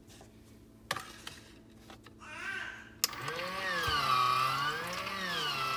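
Baby Brezza formula-making machine: a few clicks about a second in, then about three seconds in its motor starts and runs as it makes a bottle, its pitch rising and falling about once a second.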